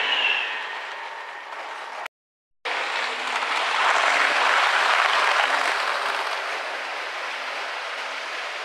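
Model trains running on the layout's track. A motor whine fades in the first half-second over the rattle of small wheels on rail as model Pendolino coaches pass. After a brief break, another model train rattles past close by, loudest about four to five seconds in, then fading as it moves away.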